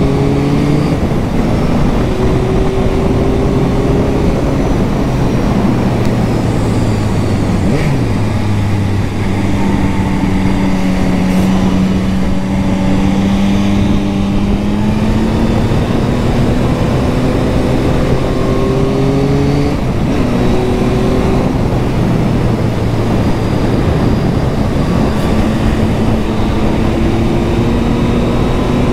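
Yamaha MT-09's inline three-cylinder engine pulling on the road, its revs rising and falling through several gear changes. The engine is held below about 6000 rpm while the nearly new bike is run in. A steady rush of wind on the microphone runs under it.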